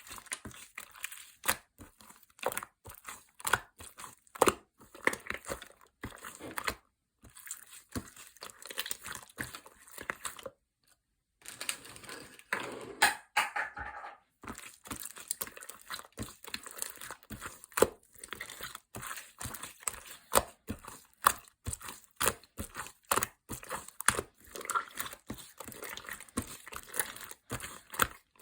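Irregular run of sharp clicks, taps and crinkling from objects being handled while a blue lemonade is made. There is a brief pause about eleven seconds in, and a denser crinkly stretch just after it.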